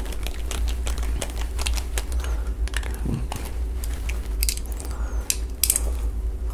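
Small screws being driven into a ShotMarker target sensor's plastic housing with a hand screwdriver, then the sensor and screwdriver handled: a run of light, irregular clicks, ticks and scrapes over a steady low hum.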